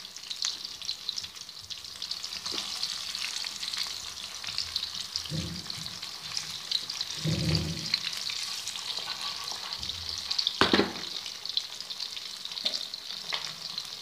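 Marinated quail pieces deep-frying in hot oil in a kadai: a steady dense crackle and sizzle. A few low thumps come midway, and there is one sharp knock about three-quarters of the way through.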